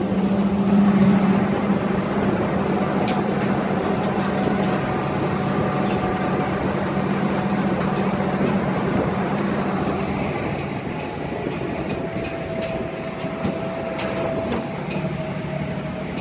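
Engine of a tour vehicle running steadily under load, a constant low drone with light clicks and rattles over it. The drone eases about ten seconds in.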